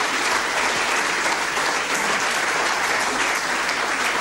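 Theatre audience applauding steadily, a dense even patter of many hands clapping.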